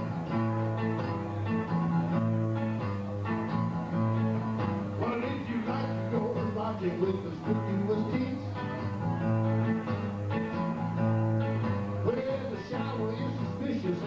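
Electric guitar played live in a blues style, steady low notes under wavering higher lines that come in about five seconds in.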